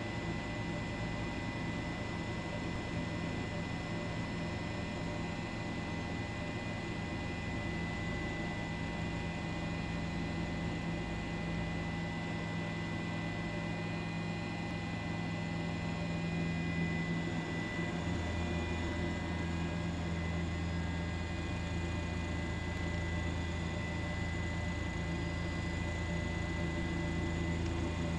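Steady hum with a constant high-pitched whine over it; the low part of the hum grows a little fuller about two-thirds of the way through.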